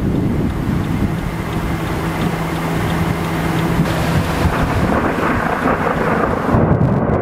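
Low, steady thunderstorm rumble: wind buffeting the microphone along with rolling thunder, with no sharp crack. A faint steady hum sits underneath for the first few seconds.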